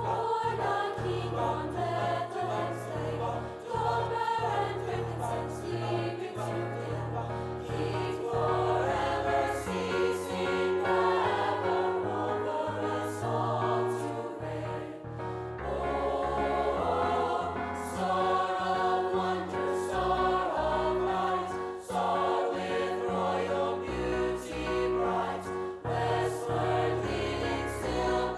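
School choir singing a Christmas song over an instrumental accompaniment with held low bass notes.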